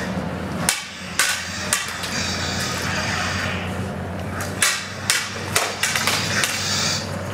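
Dueling lightsaber blades striking together in a sparring exchange: three sharp clacks about half a second apart, then a faster run of five or six clacks later on.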